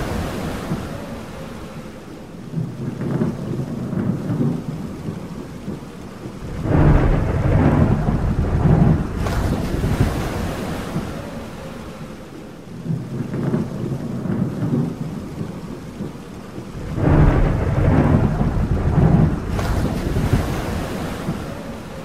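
Thunderstorm: steady rain with rolling thunder that rumbles up twice, about seven and seventeen seconds in, each roll lasting a couple of seconds.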